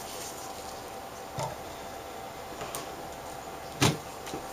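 A few light clicks and knocks as the LCD glass panel is set down onto the plastic frame of the backlight assembly, the loudest a sharp knock near the end, over a steady low room hum.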